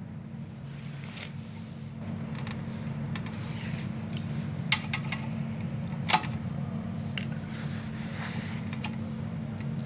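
Fingers working the wires and push-on connectors loose from the burnt-out power switch inside an opened welding machine: rustling and scraping, with two sharp clicks about halfway through. A steady low hum sits underneath.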